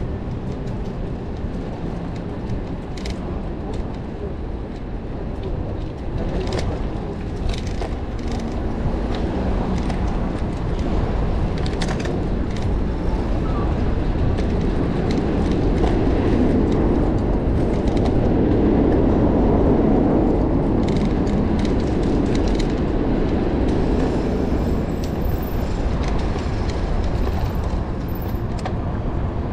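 City street traffic and road rumble heard from a moving bicycle, with scattered light clicks. A city bus alongside the bike lane makes the rumble swell for several seconds around the middle.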